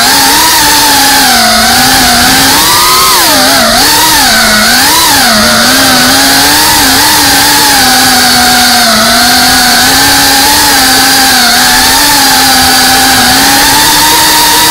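FPV racing quadcopter's brushless motors and propellers whining loudly, heard from the camera on the drone itself. The pitch wobbles up and down with quick throttle changes in the first half, holds fairly steady through the middle and rises slightly near the end.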